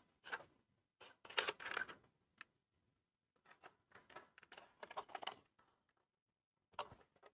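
Faint clicks, taps and rustles of a 1/12-scale RC crawler being handled, its small plastic and metal parts knocking, in uneven clusters with the loudest about a second and a half in.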